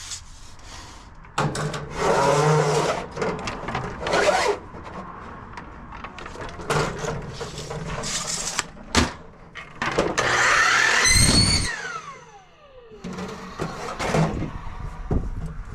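Aluminum downspout pipe being cut and handled: a series of scraping, rasping cutting strokes and metal rattles, with a sharp click about nine seconds in. Around eleven seconds a loud passage has high tones and a sound that falls steadily in pitch.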